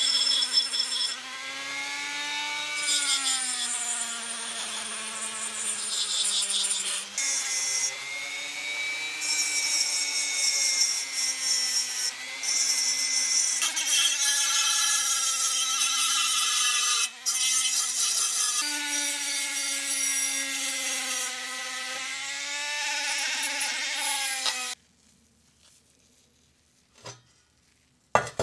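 Small electric power tool abrading rusty sheet metal, running with a steady whine and a gritty high hiss, its pitch dipping slightly under load. It breaks off briefly a few times and shuts off near the end, followed by a few light clicks.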